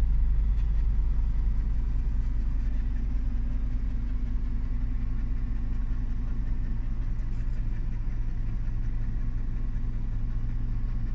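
Scania truck's diesel engine idling steadily, heard from inside the cab as a constant low hum.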